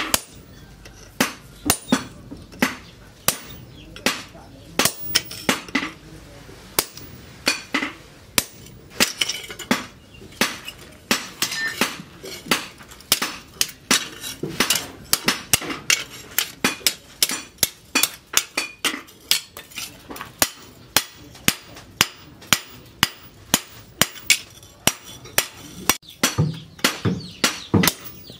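Hand hammer striking a steel cleaver blade, cut from a tractor disc, on a steel anvil post. Each blow gives a sharp metallic clang with a short ring, about two to three blows a second in runs with brief pauses.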